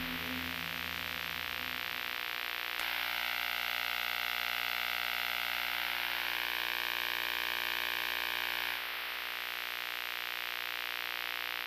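Synthesized countdown-timer sound effect: a steady electronic noise drone with a fine rapid flutter. From about three seconds in, a wavering tone is layered over it, which drops out about nine seconds in. The whole sound cuts off suddenly at the end.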